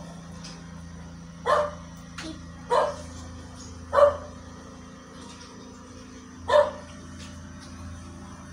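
A dog barking in short single barks, four loud ones spaced one to two and a half seconds apart, with a couple of softer ones between them, over a steady low hum.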